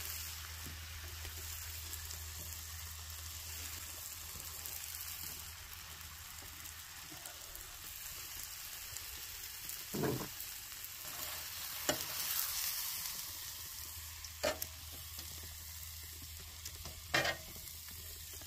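Chicken and bacon frying in teriyaki sauce with a steady sizzle, and a few short knocks of a cooking utensil now and then.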